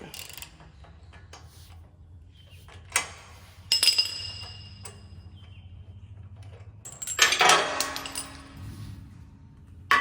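Metal clinks of a spark plug socket and hand tools while a spark plug is taken out of a Kawasaki FR691V V-twin mower engine: a sharp clink about 3 s in, a ringing metal clink just before 4 s, and a cluster of clinks and clatter a little past 7 s.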